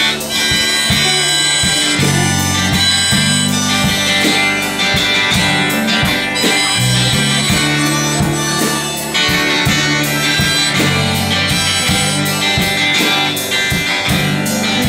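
Live rock band playing an instrumental break: acoustic and electric guitars with a drum kit keeping a steady beat, and a lead melody of long held notes on top.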